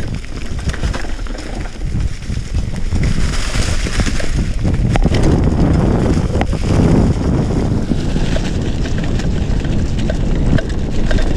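Mountain bike ridden down a rough, rocky dirt trail: wind rushing over the microphone and the tyres rumbling over rock and dirt, with scattered sharp knocks and clicks from the bike jolting.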